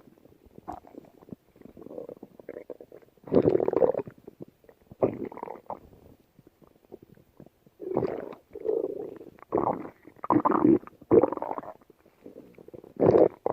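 Stomach growling and gurgling in a run of irregular rumbles. It is fainter for the first three seconds, then louder gurgles come at about 3 and 5 seconds in, a cluster follows from about 8 to 11 seconds, and another comes near the end.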